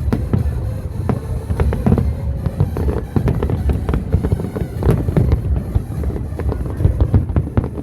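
Aerial fireworks bursting in quick succession: a dense string of sharp bangs and crackles over a continuous low rumble.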